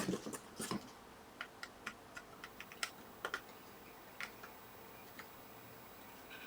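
Light, irregular clicks and taps of small tools on a circuit board during desoldering, starting with one sharper knock and thinning out after about five seconds.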